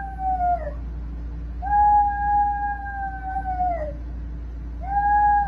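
Small dog howling: three long, steady high howls, each dropping in pitch as it ends, the third starting near the end.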